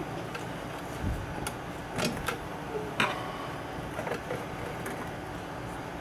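A screwdriver clicking and scraping against the metal chassis of a tube radio as a stubborn replacement part is pried and pushed into place. There are a handful of sharp clicks, the loudest about three seconds in, over a steady background hum.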